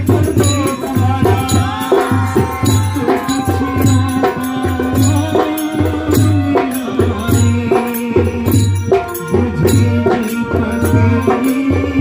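Devotional bhajan singing: a man's voice sung through a microphone over a steady drum beat of about two beats a second, with hand clapping and sharp percussion clicks keeping time.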